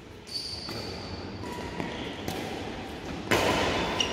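Badminton rally: rackets striking a shuttlecock, a few sharp hits echoing in a hall, the loudest about three seconds in.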